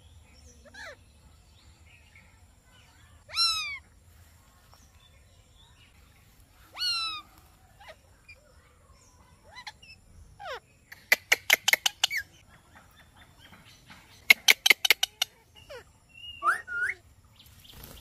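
Rose-ringed (Indian ringneck) parakeets calling. First come a few single harsh calls that fall in pitch. Midway there are two quick runs of sharp repeated calls, about eight a second, and then a couple more bent calls near the end.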